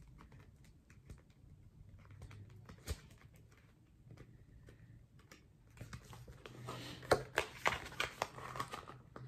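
Paper and a fabric planner cover being handled as a Hobonichi Cousin A6 notebook is worked into it: soft rustling, with a run of small clicks and scrapes in the last few seconds.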